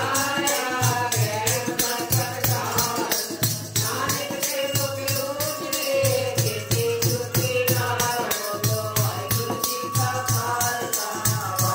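Group of women singing a Sikh devotional hymn (kirtan) into microphones, accompanied by a dholki drum and jingling wooden clappers that keep a steady beat of about four strokes a second.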